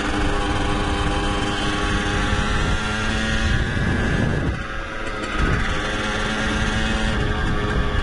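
LEM LX4 mini motocross bike's small engine running under load while riding, heard from a microphone inside the rider's helmet. About halfway through, the revs and level drop briefly, then the engine picks up again.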